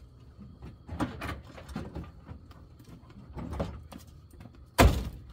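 Suzuki Samurai's driver door slammed shut near the end, a single loud bang. Before it come a few softer knocks and rustles from the cab.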